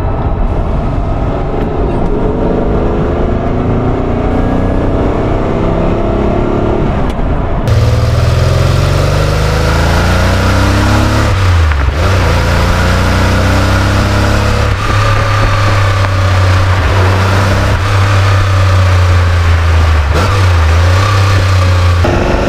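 Ferrari 512 BB's 4.9-litre flat-twelve engine at full throttle, climbing in pitch as it revs hard. About eight seconds in the sound turns suddenly louder and fuller, and the pitch drops back and climbs again at each gear change.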